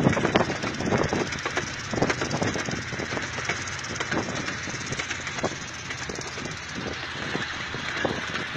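Miniature train's open riding cars rolling along the track: a steady running rumble, broken by frequent, irregular clacks and rattles of the wheels and cars.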